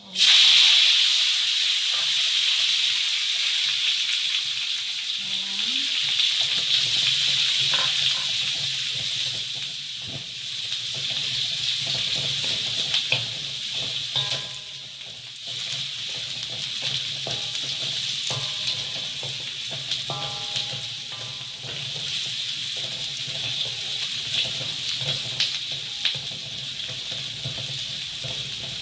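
Sliced onion and garlic tipped into hot oil in a wok set off a sudden loud sizzle, which goes on steadily as they fry. A wooden spatula stirs them, with light scrapes and knocks against the pan.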